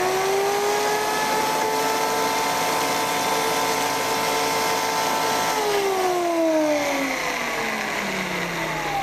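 Countertop blender motor running at speed, puréeing softened dried chili pods with orange juice, lime juice and spices into a marinade: a loud, steady whine. About five and a half seconds in, the pitch starts to fall steadily as the motor slows.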